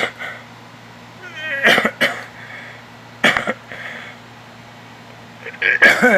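Stridor: a person's harsh, high-pitched, strained breathing, three noisy gasps about two seconds apart, the last ending in a short cry that rises and falls in pitch. It is the sign of a narrowed upper airway.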